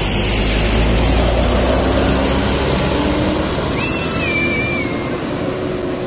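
Coach bus engine and tyres as the bus passes close by, a loud steady rumble that eases as it pulls away down the road. A short faint whistle sounds about four seconds in.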